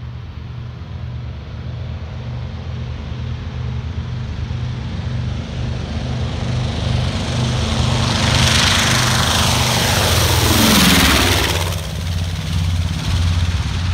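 B-25 Mitchell's twin Wright R-2600 radial engines at takeoff power, growing louder as the bomber comes down the runway and lifts off toward the listener. It passes low overhead about eleven seconds in with a falling whoosh and drop in pitch, then recedes.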